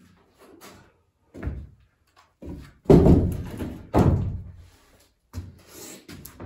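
A series of knocks and thuds, like a door or heavy object being handled: a thud about one and a half seconds in, the two loudest about three and four seconds in, with lighter clicks and knocks between.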